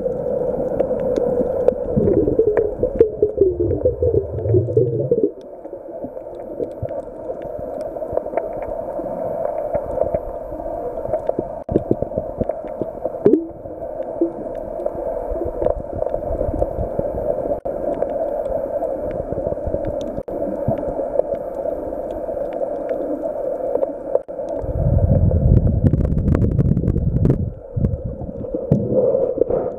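Muffled underwater sound picked up by a camera in a waterproof housing: a steady drone, with low rumbling water movement from about two to five seconds in and again about twenty-five seconds in.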